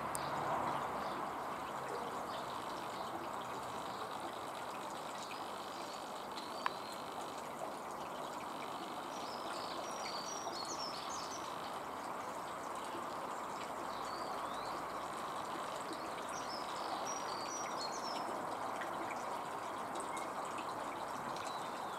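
Steady background hiss with small birds chirping in two short bouts, about halfway through and again a few seconds later, and a single faint click about a third of the way in.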